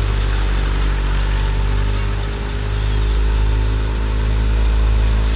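Belarus 510 tractor's diesel engine running steadily under load, driving a wheat thresher as straw is fed into it: a loud, steady machine drone with a brief dip in level about halfway through.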